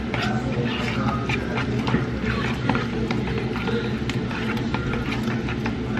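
Metal spoon stirring a thick sweet potato soufflé mix in a plastic mixing bowl, with many short clicks and scrapes of the spoon against the bowl, over a steady low background of voices or music.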